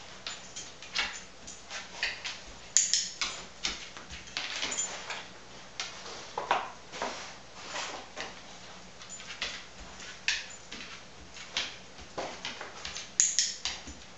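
A dog sniffing its way along a line of cardboard egg cartons on a scent-detection search, in a string of short snuffles, with light knocks and scuffs as the cartons are nudged and its paws move on the floor.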